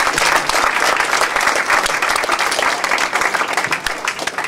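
Audience applauding, a dense crowd of hand claps that thins out near the end.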